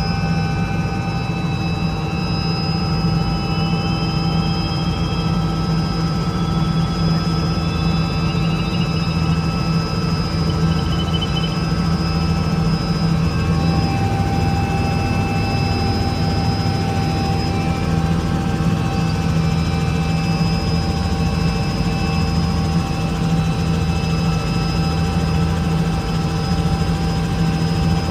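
Robinson R66 helicopter in flight, heard from inside the cabin: a steady drone of the rotors under the high, even whine of its Rolls-Royce RR300 turbine engine.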